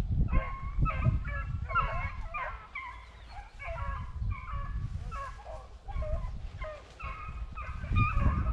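A pack of beagles baying on a rabbit's track, several dogs giving short, rapid, overlapping barks. Wind rumbles on the microphone underneath.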